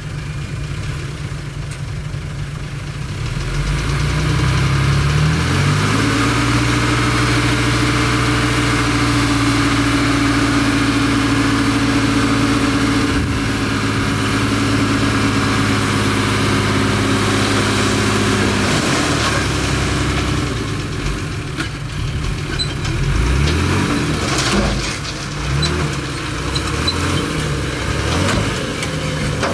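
Bulldozer engine running: it revs up about five seconds in, holds a steady higher pitch for around twelve seconds, then drops back and rises and falls unevenly near the end.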